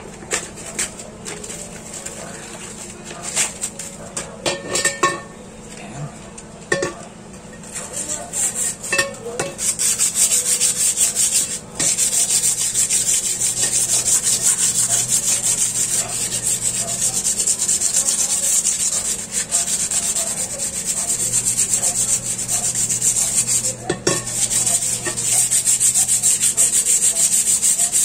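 240-grit sandpaper rubbed over a rusty motorcycle rim to take off the rust before primer. A few scattered knocks and clicks come first; from about a third of the way in it settles into a fast, steady scratching, with two brief pauses.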